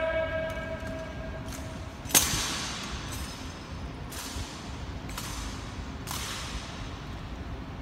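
Sharp drill strikes on a marble floor, each ringing out with a long echo through a large stone hall: one loud strike about two seconds in, then three softer ones over the next four seconds. Before them, a held ringing tone dies away.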